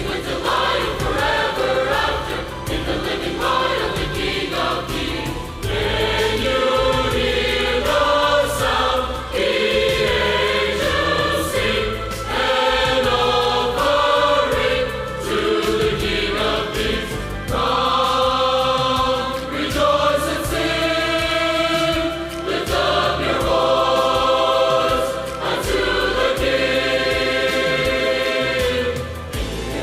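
Church choir singing a worship song, many voices holding long notes over instrumental accompaniment.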